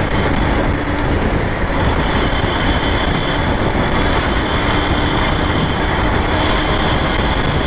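Steady rush of wind and road noise on a Lifan KPR 165 motorcycle cruising on a highway. The engine runs underneath at an even pitch with no change in throttle.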